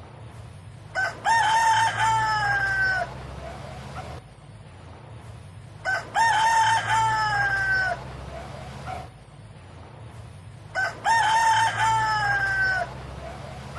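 Rooster crowing three times, about five seconds apart: each cock-a-doodle-doo lasts about two seconds, its last note held and falling in pitch.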